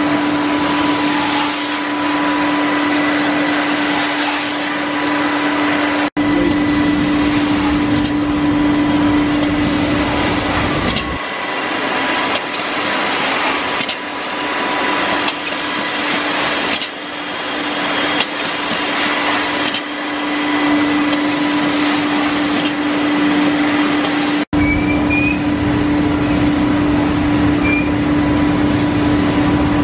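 Haas wafer baking line machinery running: a steady hum under a continuous clatter and rush of conveyors, drives and chains. A few short high squeaks come near the end.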